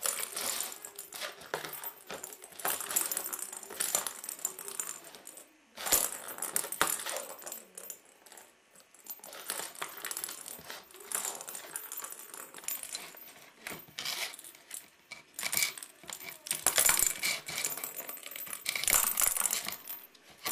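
A hard plastic ball rolling and clattering around the enclosed circular track of a cat toy as a kitten bats at it through the openings, in bursts of rattling with short pauses.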